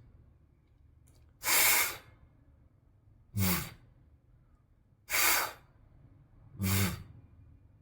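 A voice alternating the sustained consonants "fff" and "vvv", four short sounds about every second and a half: a plain hiss of air through teeth on lip, then the same hiss with the voice buzzing under it, then the plain hiss again, then the voiced one.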